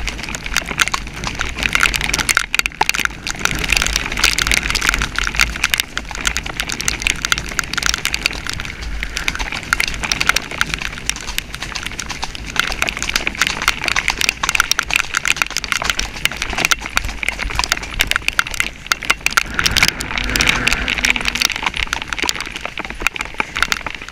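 A horse cantering, heard from the rider's helmet camera: wind buffeting the microphone over hoofbeats, with dense pattering of rain on the camera.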